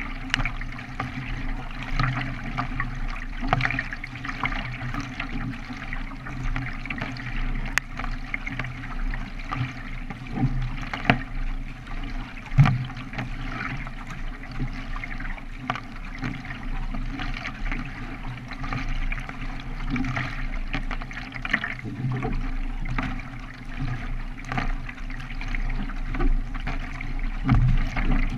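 K1 racing kayak paddled at race pace: repeated paddle splashes over a steady rush and trickle of water along the hull.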